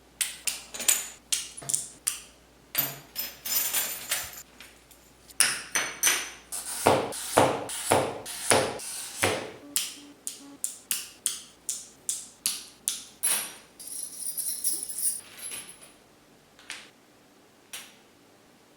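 A long run of sharp taps, clicks and clinks with a bright ringing edge, several a second. They come heavier and closer together through the middle, then thin to a few isolated clicks near the end. This is pieces of glass knocking and being worked by hand.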